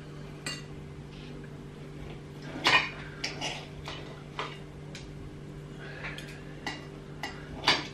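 Knife and fork clinking and scraping against a ceramic plate while cutting raw beef into cubes, about ten irregular clicks with the two loudest a little under 3 s in and near the end. A steady low hum runs underneath.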